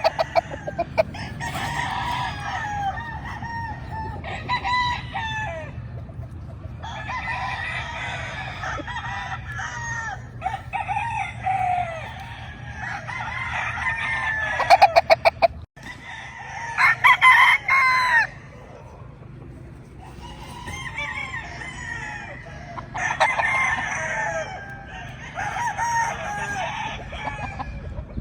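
Several gamefowl roosters crowing in overlapping bouts, one call after another, with clucking between the crows. A few sharp clicks come through about halfway.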